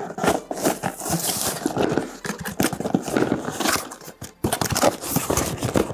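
Corrugated cardboard box being handled: flaps and sides scraping and rubbing in irregular strokes as a smaller box inside is worked out of it, with a brief lull a little past two-thirds through.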